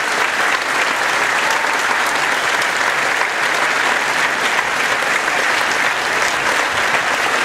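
Lecture-hall audience applauding steadily, a dense, even clapping.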